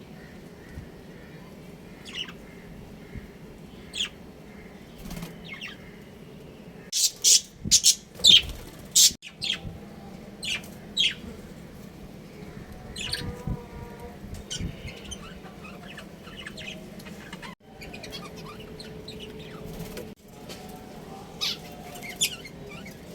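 Budgerigars chirping: short, sharp high calls scattered through, loudest in a quick cluster about a third of the way in, over a low steady hum.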